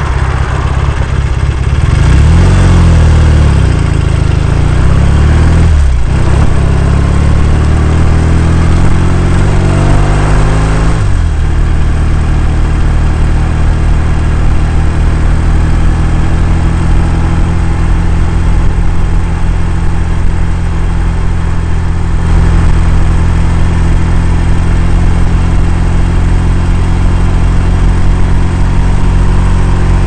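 1967 Triumph Bonneville's 650 cc parallel-twin engine pulling away from a stop, rising in pitch, dropping for a gear change about six seconds in, rising again, then running steadily at cruising speed from about eleven seconds on.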